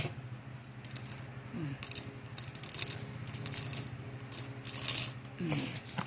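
Whole roasted Robusta coffee beans dropping by the handful into a stainless steel hand grinder, rattling and clicking irregularly against the metal.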